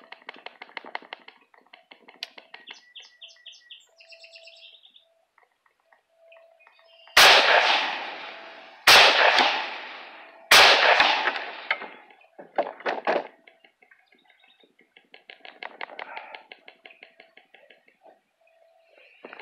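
Three rifle shots from an Adams Arms gas-piston AR-style rifle in 5.45×39, fired about a second and a half apart, each trailing off in a long echo. A few lighter clicks follow the shots. Small birds chirp faintly before the firing.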